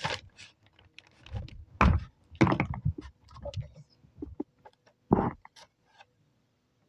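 Handling noise on a phone's microphone: irregular rubbing and bumps as a hand and clothing brush against the phone, stopping about six seconds in.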